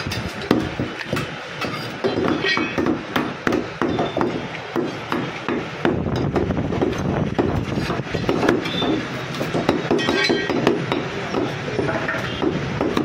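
Butcher's cleaver chopping goat meat and bone on a wooden block: a long run of sharp, irregular chops, several a second at times.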